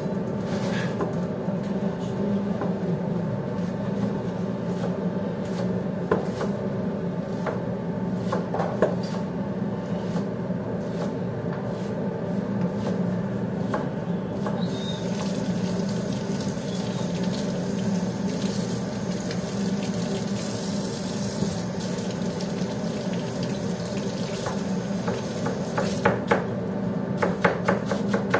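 Water running from a kitchen tap, joined about halfway through by a rising hiss, over a steady low machine hum. Near the end come a few sharp knife knocks on a plastic cutting board.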